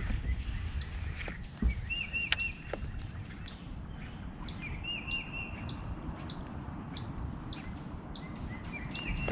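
A songbird singing a short phrase of three or four quick, down-slurred notes, repeated every few seconds, over a low rumble and scattered faint clicks.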